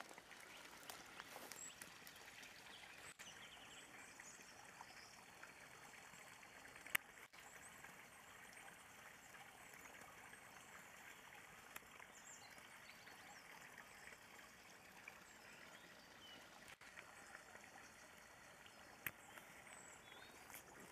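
Faint steady trickle of water in a small watercourse, with a few sharp clicks, the loudest about seven seconds in.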